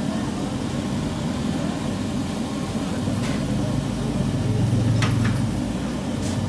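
Jalebi batter frying in a large karahi of hot oil, a faint sizzle over a steady low rumble, with a few sharp clicks in the second half.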